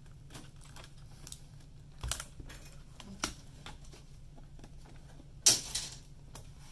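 Scattered small clicks and taps as a Dell Chromebook 11-3180's keyboard and ribbon cable are pried and pulled loose with a pointed tool, with one louder clatter about five and a half seconds in.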